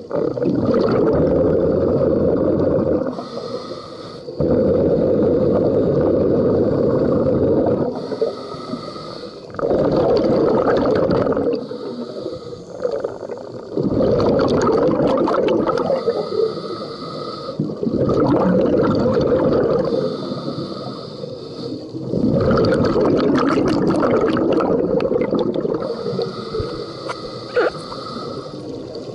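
Scuba diver breathing underwater through a regulator: six long gurgling bursts of exhaled bubbles, each two to four seconds, about every four to five seconds, with quieter inhalations through the regulator between them.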